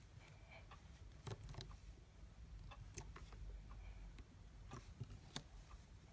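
Smooth putty being squished and pulled by hand, making faint, scattered small sticky clicks and pops.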